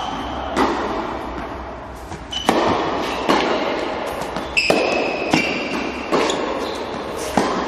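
Tennis serve and baseline rally: the ball struck off racket strings and bouncing on the court, a sharp pop roughly every three-quarters of a second, each echoing in a large indoor tennis hall.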